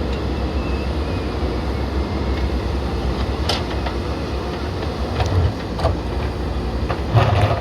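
JCB backhoe loader's diesel engine running steadily under work, with a few sharp knocks and a louder clunk near the end.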